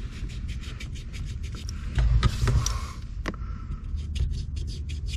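Light clicks, taps and scraping from hands handling a steel accelerator pedal assembly and its bracket, with a louder dull thump and scuff about two seconds in.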